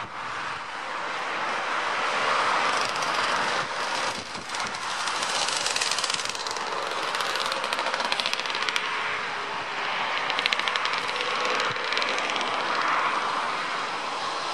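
Airbus A350's Rolls-Royce Trent XWB jet engines running as the airliner rolls along the runway: a steady rushing jet noise that crackles and flutters in places.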